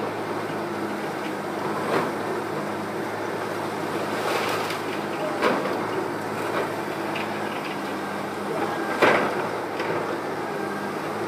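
Diesel engine of heavy demolition machinery running steadily, with a few knocks and crashes of debris, the loudest about nine seconds in.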